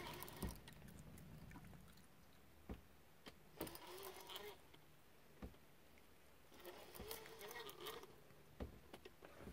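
Near silence, with a faint low hum and a handful of faint, irregular clicks and knocks.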